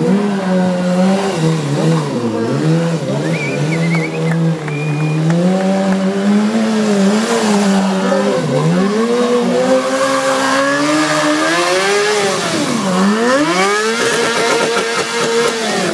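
BMW S1000RR's inline-four engine revving up and down repeatedly during stunt riding. Near the end the revs are held high and steady in a burnout, with the rear tyre spinning and screeching on the pavement.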